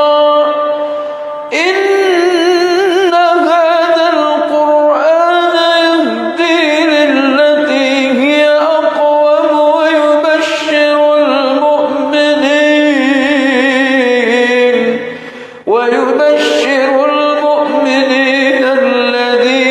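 A man's solo melodic Quran recitation in Arabic, sung in long held notes with wavering, ornamented pitch. It breaks twice for breath, once about a second and a half in and again about four seconds before the end.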